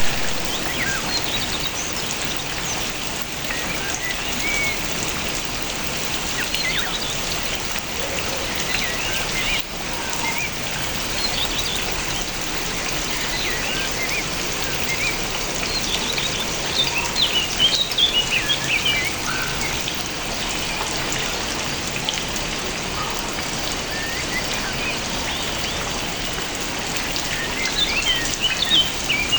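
Steady rain falling, with small birds chirping over it; the chirps come in busier flurries about halfway through and again near the end.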